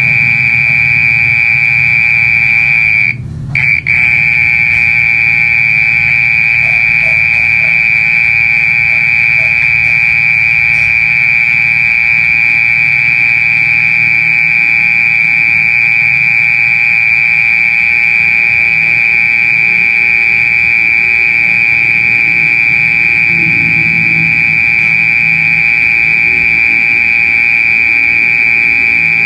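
Mole cricket singing: a loud, steady, high-pitched continuous trill that runs on without a break, except for a brief pause about three seconds in.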